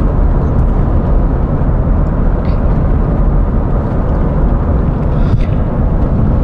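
Steady road and engine noise inside a car's cabin while it is driven: a low, even rumble with no break.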